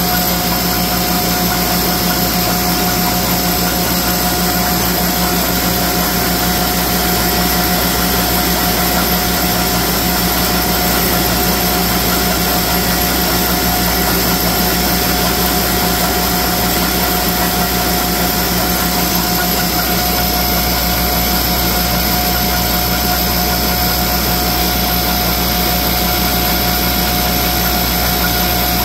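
Rebuilt thread rolling machine and its vibratory bowl feeder running in production, rolling threads on over 300 screws a minute: a loud, steady mechanical noise with a constant hum.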